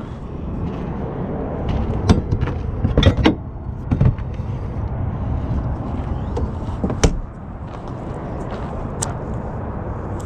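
Dunnage wood being moved on a flatbed trailer: scattered knocks and clunks, a cluster about two to four seconds in and a sharp one around seven seconds, over a steady low rumble.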